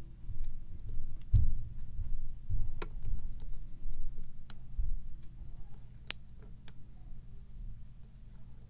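Metal lock pick working the pins of a Wilka pin-tumbler challenge lock: scattered small clicks and ticks, about half a dozen sharp ones at irregular intervals, over low handling rumble from the lock and tensioner being held.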